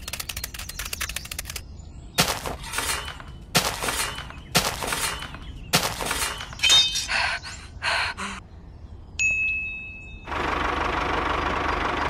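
A fast rattle of clicks, then a series of about ten separate sharp impacts with short ringing tails, then a brief steady high beep near the end.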